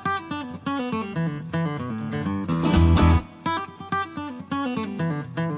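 Background music: acoustic guitar picking a run of notes over a bass line.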